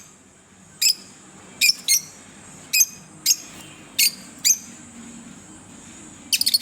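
Green Fischer's lovebirds chirping: short, sharp, high-pitched calls, single or in quick pairs, coming about every half second to a second, with a rapid run of chirps near the end.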